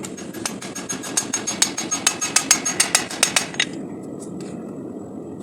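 A fast, even run of metal hammer strikes ringing on steel, about eight a second, stopping about three and a half seconds in, over a steady roar.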